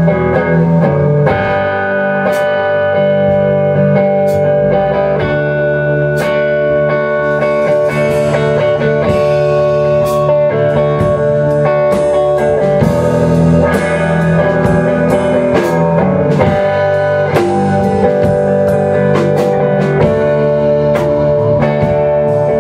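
Live band playing an instrumental passage: electric guitars holding sustained notes over a drum kit keeping a steady beat with cymbal hits.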